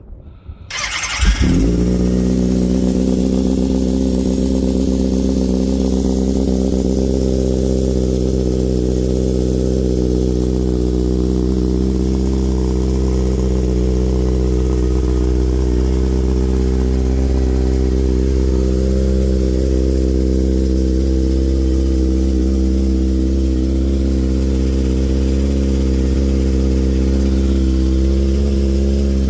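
2009 Kawasaki ZX-6R's 599 cc inline-four engine starting about a second in and settling into a steady idle, warming up on freshly changed oil.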